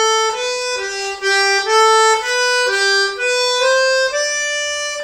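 Small piano accordion playing a simple tune of held single notes, its free reeds sounding as the bellows push air through them.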